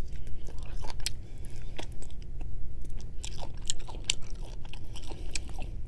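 A person chewing and biting food close to the microphone, with many short wet mouth clicks and small crunches.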